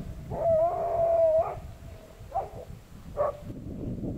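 Laika dog whining in a long, high, held cry, then giving two short yelps.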